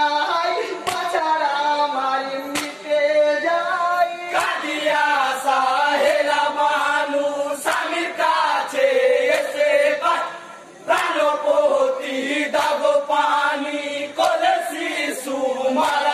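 A group of men singing a Bengali jari marsiya, a Muharram lament, together in chorus, phrase after phrase with short breaths between. Occasional sharp hand claps mark the beat.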